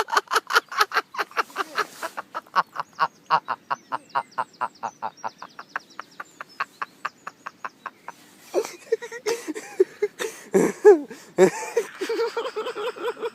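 A fast, even string of short beeps, about five a second for some eight seconds, as a carp bite alarm gives when a fish takes line on a run. In the last five seconds a louder jumble of higher, clucking calls and noise takes over.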